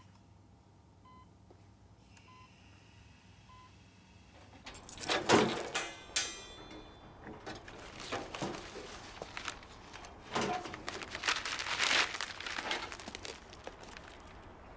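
A faint short electronic beep repeating about every second, four times, then a run of knocks, a clatter and rustling, the loudest knock about five seconds in.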